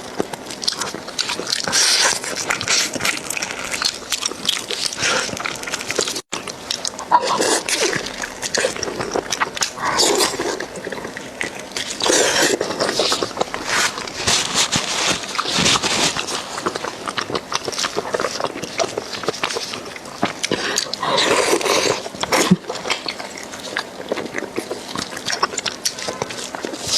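Close-miked eating of beef bone marrow: wet sucking, slurping and chewing with dense mouth clicks, and a noisy slurp every few seconds.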